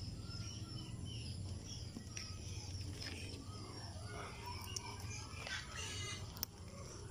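Backyard ambience of chickens clucking and small birds chirping repeatedly, with a few sharp clicks near the end and a steady low hum underneath.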